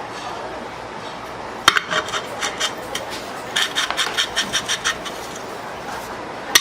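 Quick repeated strokes of a hand tool, likely filing or tapping on a fan part, in two short runs of about five strokes a second; the first run opens with a sharp knock. A steady workshop noise runs underneath.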